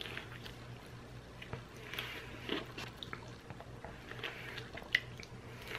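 A man biting into and chewing a small fried chicken sandwich on a soft bun: faint, scattered wet clicks and crackles of chewing, over a steady low hum.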